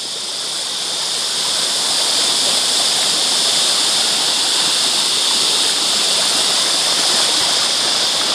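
Creek water rushing over rocks, a steady hiss that grows louder over the first couple of seconds and then holds even.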